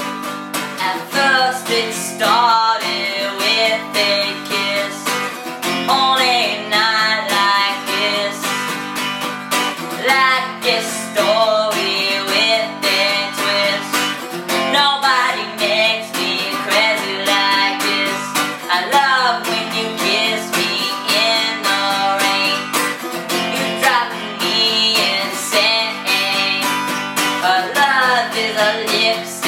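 Music: strummed acoustic guitar with a gliding melody line over it, with no sung words.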